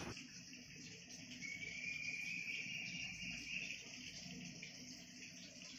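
Faint, steady, high-pitched insect chirring in the background, with a thin tone that rises slightly for about two seconds in the middle.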